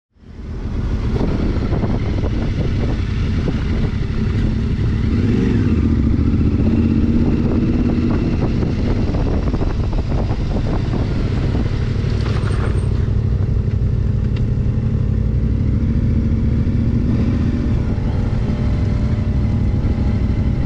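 Adventure motorcycle riding slowly, its engine running steadily under a dense low rumble, with the engine pitch briefly rising and falling about five seconds in.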